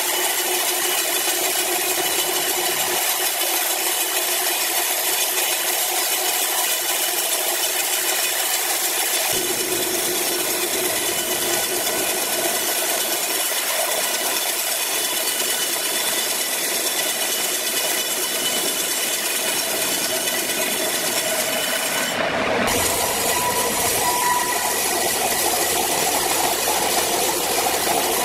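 Horizontal band sawmill blade cutting lengthwise through a large log: a steady loud hiss of the blade in the wood over the machine's running whine. About three quarters of the way through, the sound shifts abruptly and a low hum joins it as another band saw cutting a log is heard.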